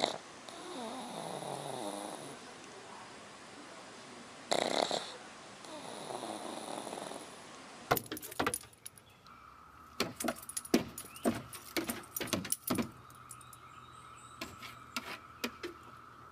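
A dog snoring: two loud noisy breaths about four and a half seconds apart, each followed by a falling pitched tone. Then comes a rapid, irregular run of sharp clicks and clatters, with a faint steady high tone under it near the end.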